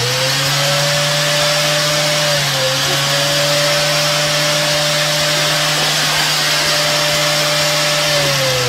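Electric motor running at a steady whine over a loud rushing hiss. Its pitch dips briefly about two and a half seconds in and sags slightly near the end.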